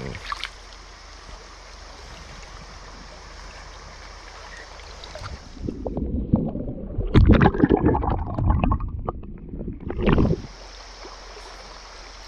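Shallow creek water flowing over rocks. About six seconds in, the sound turns muffled with loud low sloshing and gurgling as the microphone dips under the surface while a trout is eased back into the water, then the plain flowing stream returns near the end.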